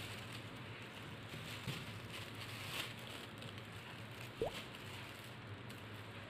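Thin plastic bag crinkling and rustling as hands rummage in it and pull out soft roasted sweet potatoes. There is a brief sharp squeak about four seconds in.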